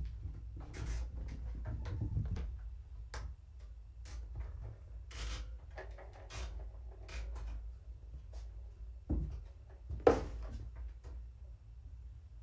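Kittens playing on a blanket-covered floor: scattered light taps, scuffs and rustles, with one sharper knock about ten seconds in, over a low steady hum.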